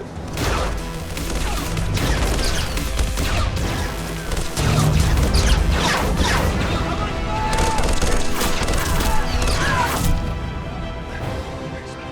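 Loud crashing and splintering of wood, with repeated sharp impacts and a few gliding whines over a dense mix of sound effects.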